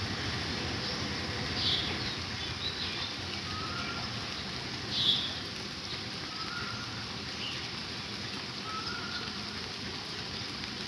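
Steady patter of rain with birds calling: two sharp chirps, the louder one about five seconds in, and a short whistled note repeated about every two and a half seconds.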